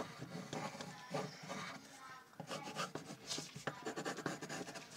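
Pencil scratching on paper in quick, irregular strokes while drawing.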